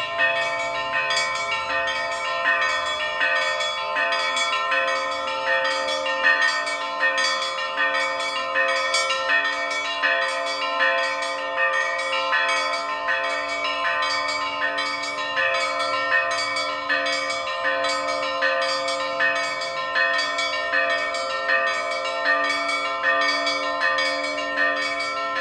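Russian Orthodox church bells rung in a continuous peal: smaller bells struck in a quick repeating pattern about twice a second over the sustained hum of several bells ringing together.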